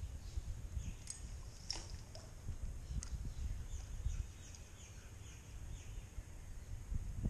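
Wind noise on the microphone, with faint, short, high bird chirps now and then.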